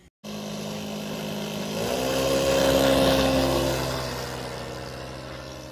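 RC model airplane engine running, then revving up with a rise in pitch about two seconds in, loudest about a second later, then fading.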